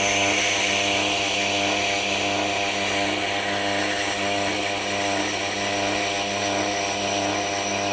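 Tormek T8 sharpener's motor humming with its SG250 stone spinning, and a steady hissing scrape as a grading tool is held against the turning stone to smooth its surface.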